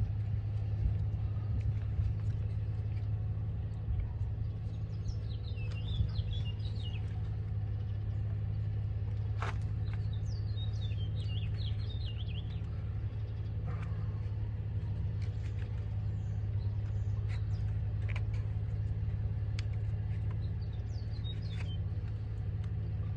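A steady low, engine-like rumble, with birds chirping in short bursts three times and a few sharp clicks from hands working hoses and connectors in an engine bay.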